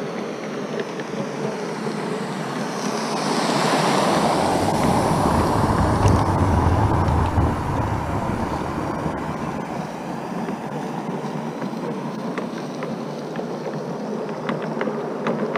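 Gauge 1 model train, a locomotive with tender hauling coaches, running past close by. A rushing noise swells as the locomotive goes by, then settles to a steady rolling sound as the coaches follow, with a few light clicks near the end.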